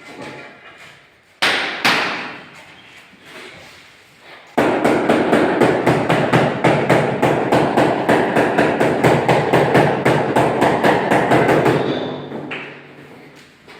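Mallet tapping a marble floor tile to bed it into the mortar: two separate knocks, then a fast run of even taps at about five or six a second for some seven seconds, fading out near the end.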